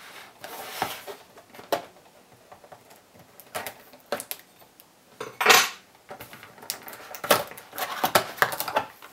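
A cardboard box being opened and a filament spool in a plastic vacuum bag handled: scattered clicks, knocks and rustles, the loudest a rustle about five and a half seconds in, with a quick run of clicks near the end.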